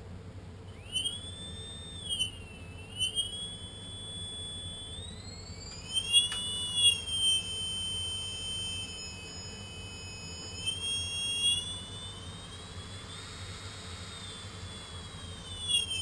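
Brushless drone motor sold as a Tarot 4006, running with a high-pitched whine whose pitch rises and falls as its speed changes. The owner says the whine is probably due to bad bearings. One sharp click comes about six seconds in.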